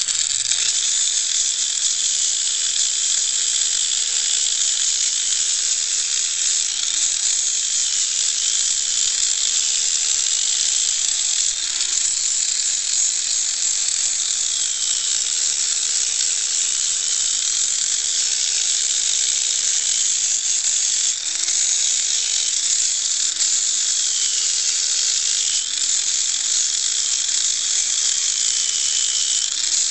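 Small handheld grinder sanding down a horse's hoof wall, running steadily with a harsh high grinding hiss. The motor pitch wavers slightly now and then as the disc is pressed against the hoof.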